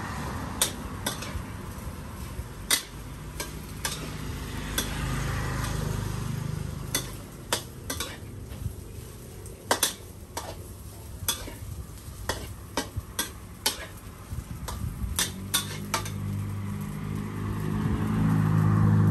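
Metal spatula scraping and knocking against a steel wok as rice is stir-fried, with many sharp clicks over a steady frying sizzle. A low rumble swells near the end.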